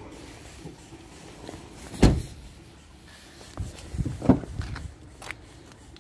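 A Skoda Scala hatchback's tailgate shut with one heavy thump about two seconds in, then the clicks and knocks of a rear door handle being pulled and the door unlatching and swinging open around four seconds in.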